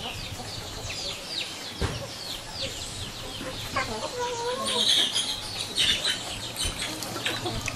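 Chickens clucking, with many short high falling chirps throughout and a wavering call about four seconds in. Light sloshing of water runs underneath as sliced eru leaves are rinsed by hand in a basin.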